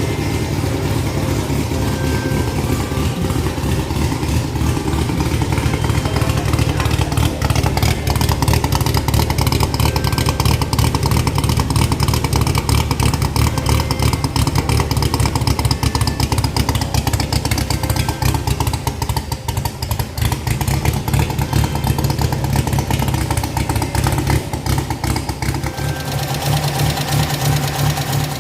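Engine of a custom-built Toyota Corolla running steadily, fired by a Suzuki Shogun motorcycle CDI ignition, with a fast even run of firing pulses.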